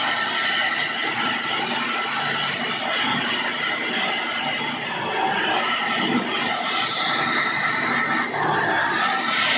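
Belt-driven flour mill powered by an induction motor, running steadily: a continuous mechanical whirr of the grinder, flat belt and pulleys, with a few steady high tones over it.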